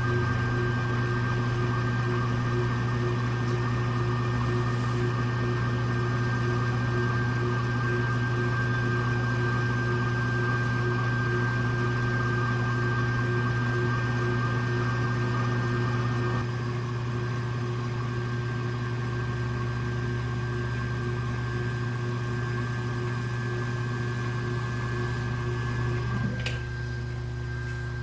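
Electric potter's wheel motor running at a steady hum. It steps down a little about halfway through, and near the end there is a short click and the hum drops again as the wheel slows.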